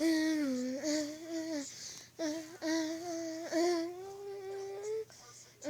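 A voice humming a wordless tune in long held notes that slide between pitches, with short breaks, going quiet near the end.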